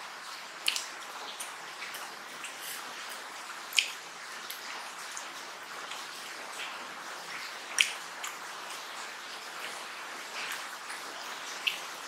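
Close-up wet eating sounds of rice and mutton curry eaten by hand: chewing with scattered wet clicks over a steady hiss, a few sharp clicks standing out about one, four and eight seconds in.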